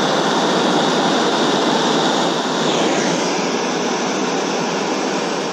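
Hose-fed gas blowtorch burning with a steady rushing hiss, heating aluminium for brazing with HTS-2000 rod. The hiss begins to die away right at the end as the torch is shut off.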